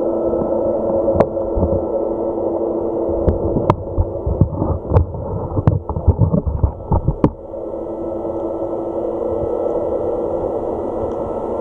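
Muffled underwater sound picked up by a waterproof action camera held against a boat's hull: a steady hum with a few held tones. From about three to seven seconds in, a run of sharp knocks and clicks breaks in.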